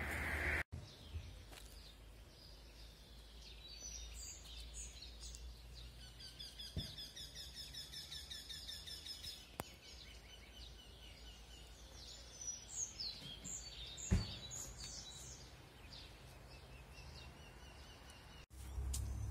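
Wild birds singing in woodland: several overlapping songs of repeated high notes and quick trills, faint, with a few short sharp clicks, the loudest about 14 seconds in.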